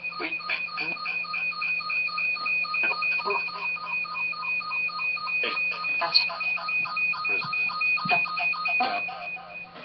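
Echovox ghost-box app on a phone playing through a speaker dock: a rapid, regular electronic chirping of short high beeps, about five a second, mixed with static. It cuts out just before the end.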